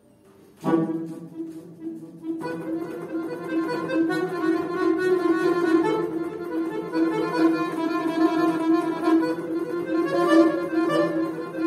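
Button accordion (bayan) music: after a brief silence, a loud sustained chord enters just under a second in. A held middle note carries on beneath it, and quicker upper notes join at about two seconds and keep going.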